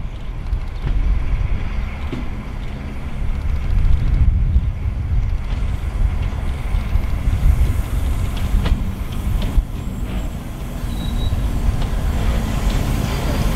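Pair of SNCF BB 67400 diesel-electric locomotives running light at low speed, their diesel engines giving a steady low rumble as they pass close by. A few sharp clicks come through around the middle.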